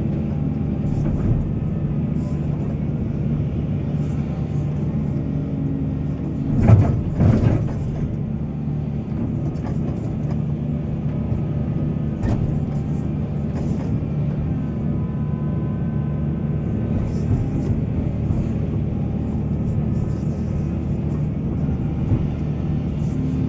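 Heavy excavator's diesel engine running steadily under load, with a loud brief surge about seven seconds in.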